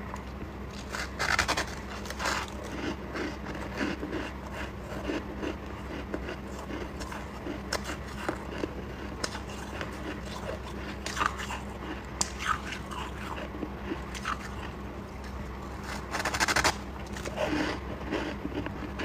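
A chunk of crunchy white frost being bitten and chewed: irregular crackly crunches close to the mouth, louder about a second and a half in and again near the end.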